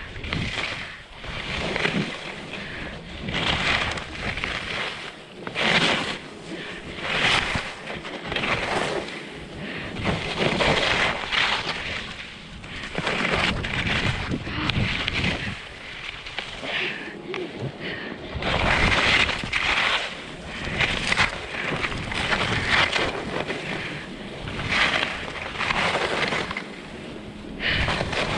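Skis swishing and scraping across snow in repeated turns, a swell every second or two, under wind noise on the microphone.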